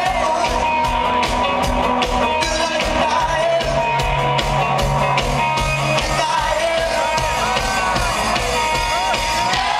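Rock band playing live, heard from the audience: electric guitars with steady held notes over bass and a driving drum beat, and a sung vocal line.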